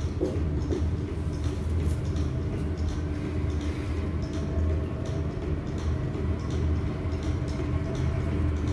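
Apheresis cell-separator machine running steadily during a peripheral blood stem cell collection: a low hum with faint regular ticking.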